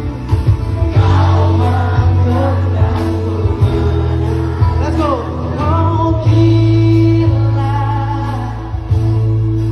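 Live music played loudly through a PA: a singing voice carries the melody over a band with heavy, steady bass.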